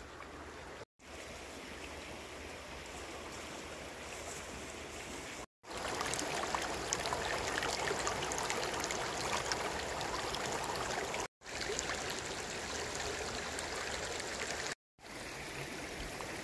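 Shallow water rushing and babbling over rocks in a riffle, a steady noise without a beat. It comes in several pieces split by four brief silences, loudest in the middle stretch.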